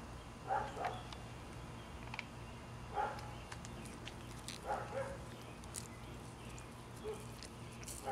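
A dog barking: about five short barks, some coming in quick pairs, over a steady low hum.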